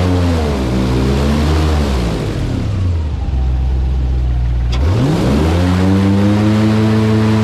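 Airboat's engine and air propeller running loud; the pitch drops early on as the throttle eases, stays low, then climbs sharply about five seconds in as the throttle opens again and holds steady. A brief click just before the climb.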